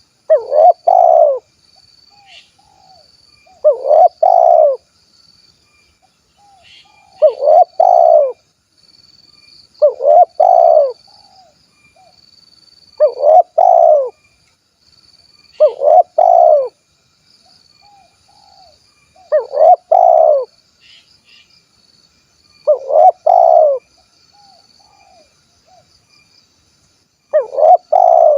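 Spotted dove (tekukur) cooing: the same loud coo phrase repeated nine times, about every three to four seconds, in the 'kuk 1' song type with a single closing 'kuk' note. A faint steady high-pitched tone runs underneath.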